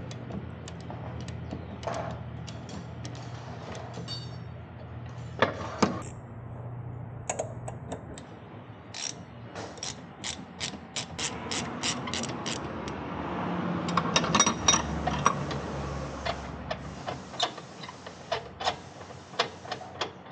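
Hand ratchet wrench clicking in runs of strokes, with scattered sharp metal clinks of tools and parts. A steady low hum runs under the first several seconds.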